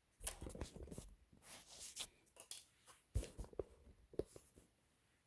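Irregular small clicks, knocks and scraping of hands working a wiring connector loose inside a sewing machine, with a couple of sharper knocks past the middle.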